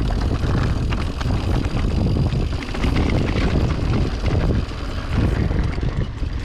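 Orbea Oiz mountain bike rolling fast down a rocky trail: steady wind rumble on the camera microphone over tyres crunching on loose stones, with many small clicks and rattles from the bike on the rough ground.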